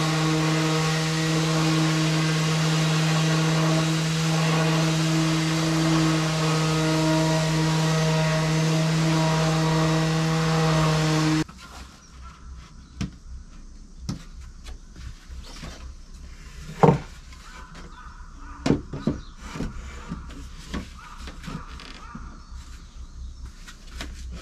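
Makita BO3710 orbital finishing sander running steadily on wood with an even hum for about eleven seconds, then cutting off suddenly. After that come light wooden knocks and clacks as pine shelf boards and a wooden frame are handled, with one sharper knock a little past the middle.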